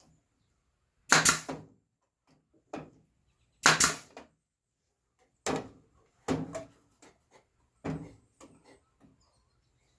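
An irregular series of about seven sharp wooden knocks and clatters, as wood pieces are handled and set down on a workbench. The loudest come about a second in and just before four seconds.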